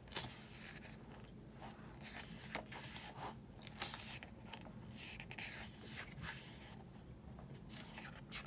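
Glossy pages of a CD album's photobook being turned by hand: faint paper rustling and brushing, with short page-flip swishes coming again and again.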